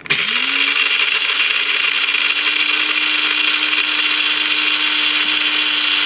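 BLACK+DECKER one-touch electric coffee grinder switched on with a push of its lid button: the motor spins up within half a second to a steady high whir, with the rattle of the blades chopping whole coffee beans into grounds.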